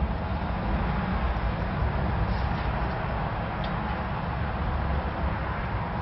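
A 2000 Hunter Passport II ceiling fan running at speed: a steady rush of air from its spinning blades over a low rumble.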